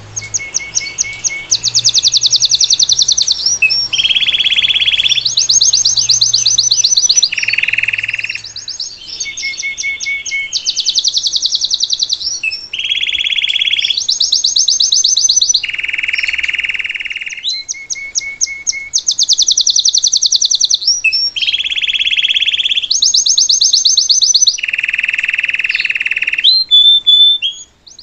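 Belgian canary singing continuously, phrase after phrase: fast, high trills alternate with lower, steadier phrases of about a second each.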